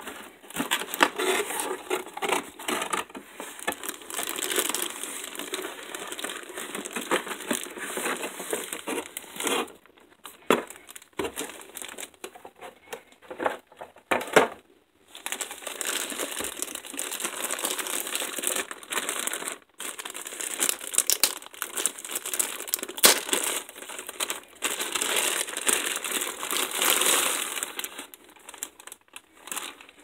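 Clear plastic wrapping crinkling and cardboard packaging rustling as a VR headset is unpacked by hand. There is a quieter stretch near the middle with a few sharp clicks.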